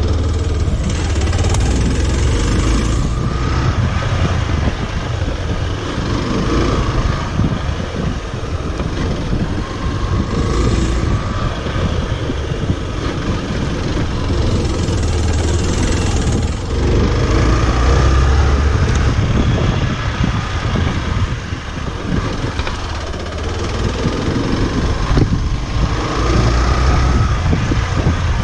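Hero XPulse 200's single-cylinder engine running under a rider on a rough dirt trail, its level rising and falling with the throttle. There is one sharp knock near the end.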